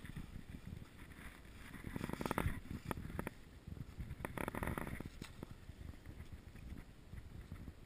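Dry reed stalks cracking and splitting as they are cut and prised open with a knife: two short bursts of rapid crackling, about two seconds and four and a half seconds in, with rustling handling noise between.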